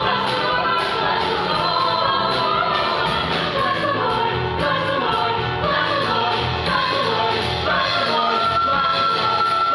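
A stage-musical cast singing together in chorus over instrumental accompaniment, with a long held note near the end.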